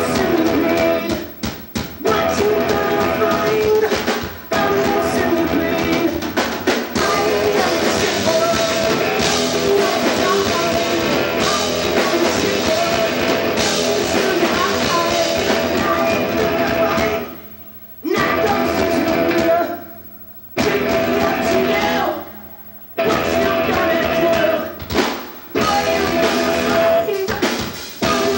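Rock band playing live, with electric guitars, drums and a singer. In the second half the whole band stops dead three times, each for about half a second, before crashing back in.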